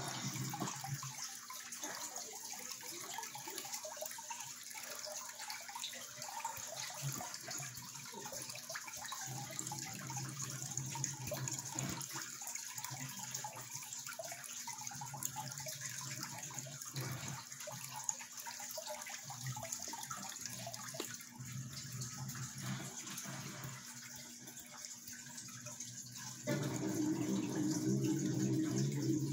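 Steady running water in a turtle tank, an even trickling hiss. It grows louder and fuller near the end.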